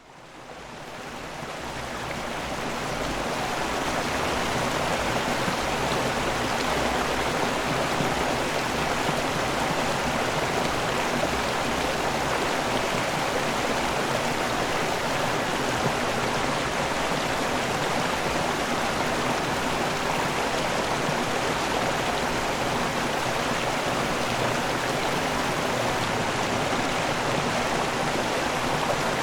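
Steady rushing of a river waterfall, a dense even water noise with no pauses, fading in over the first few seconds.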